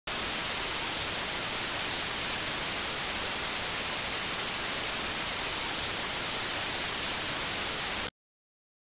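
Steady static hiss, brightest in the treble, that switches on abruptly and cuts off abruptly after about eight seconds.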